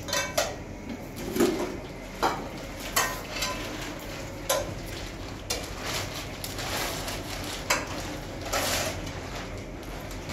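Metal pots and dishes clinking and knocking, one sharp clink every second or so. In the second half a large cloth rustles as it is shaken out.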